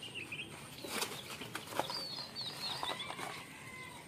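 Small birds chirping in quick runs of short falling notes near the start and again around two seconds in, then a drawn-out whistle near three seconds. A few sharp rustling knocks are mixed in.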